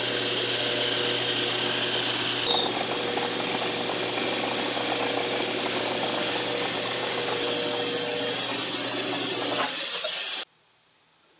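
Metal lathe running, its chuck spinning a small pulley while a boring bar opens up the pulley's bore to fit a 17 mm motor shaft: a steady motor hum with a steady high tone over the cutting noise. It cuts off suddenly about ten seconds in, leaving near silence.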